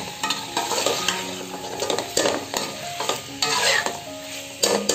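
Metal spoon stirring chicken jalfrezi in a stainless-steel pan, with irregular scrapes and knocks against the pan as the masala, chicken and peppers sizzle.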